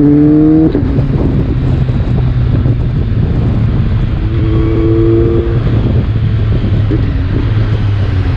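BMW K1300R's inline-four engine through a Mivv exhaust, pulling hard just after a quickshifter upshift at the very start. The throttle closes under a second in and the engine drops to lower revs, running on at a part-throttle cruise.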